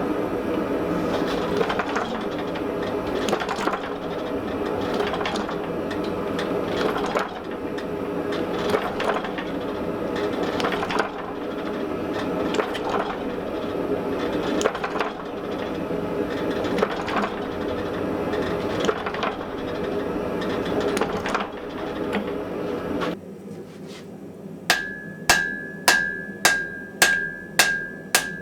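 Steady roar of a propane gas forge running for most of the clip, with faint knocks under it; it stops near the end and a hammer strikes metal on an anvil about eight times, two blows a second, each blow ringing clearly.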